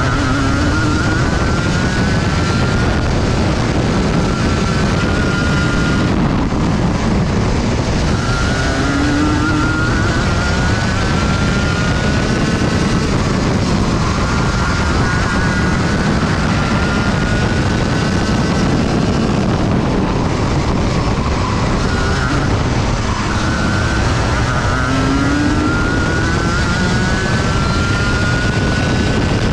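Junior Rotax kart's 125cc single-cylinder two-stroke engine heard onboard at racing speed, revving up in long rising sweeps and dropping back, several times over.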